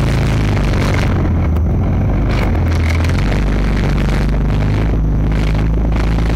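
BMP tracked infantry fighting vehicle on the move: its V6 diesel engine runs steadily under load with the noise of the running gear, heard from on top of the hull.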